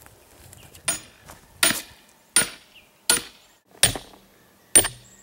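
Hammer blows on the screwed-on cap of a half-inch metal pipe, driving the pipe into the ground. Six strikes, about one every three-quarters of a second, each with a short high metallic ring.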